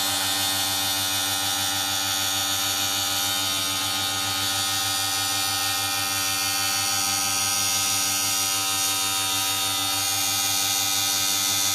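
Omni CNC router spindle running at a steady speed, a green abrasive disc on it working along the rim of a sink: an even electric whine over a low hum, with no change in pitch.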